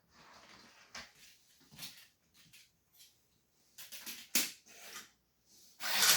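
Plastic Lego train track pieces being moved and shuffled by hand: scattered light clicks and knocks, then a loud rustling clatter of pieces near the end.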